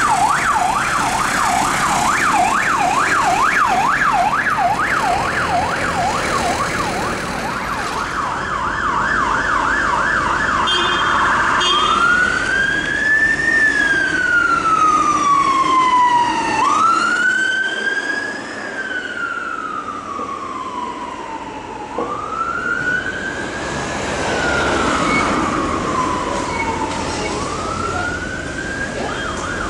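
Electronic sirens on responding fire service vehicles. A fast yelp sweeps up and down a few times a second. About twelve seconds in it changes to a slow wail, each cycle rising quickly and falling over about five seconds, and near the end it switches back to the fast yelp.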